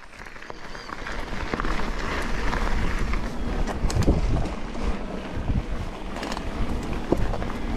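Wind buffeting an action camera's microphone while riding a mountain bike on a dirt trail. There is a steady low rumble with scattered short knocks and rattles from the bike over rough ground, fading in over the first second or two.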